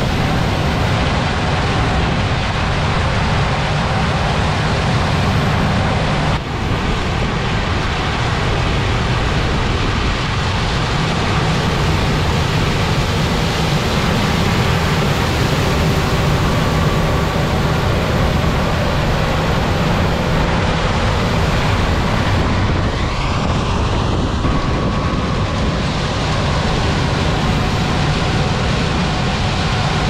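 Claas Lexion 8800 combine harvesting corn with its corn head: a steady, loud machine noise of engine and threshing, with a low hum underneath. The sound dips briefly about six seconds in.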